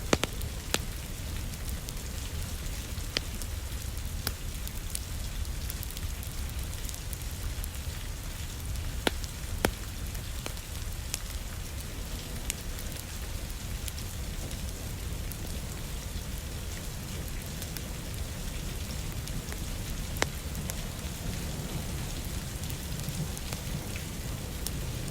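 Steady rain with a low rumble, together with a crackling wood fire giving scattered sharp pops a few seconds apart.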